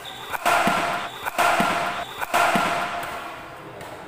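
Three loud hits of badminton rackets on a shuttlecock, about a second apart, during a rally, each ringing on in the echo of a large hall.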